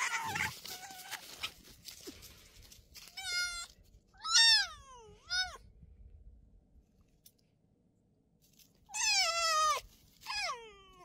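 Red fox whining and crying: a harsh, noisy cry at the start, then a series of high, drawn-out whines that slide down in pitch, three of them a few seconds in and two more near the end.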